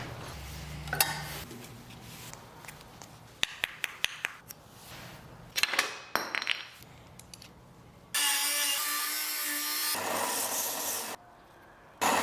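Workshop tool work on wood: scattered knocks, clicks and scraping, then a small power tool running steadily for about three seconds, starting and stopping abruptly.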